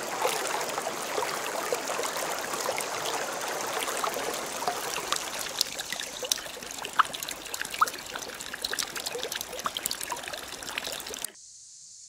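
Small rocky woodland stream trickling and splashing over stones: a steady rush with scattered small plinks. It cuts off suddenly about eleven seconds in.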